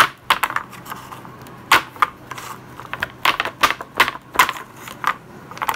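Clear plastic chocolate mold being tapped against a countertop, an irregular run of sharp plastic clacks, to loosen the frozen chocolates from their cavities.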